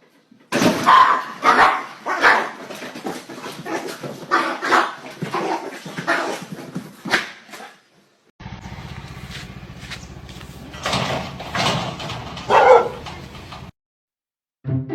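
A dog barking in a run of short, loud barks, then, after a cut, a few more barks over a low background hum.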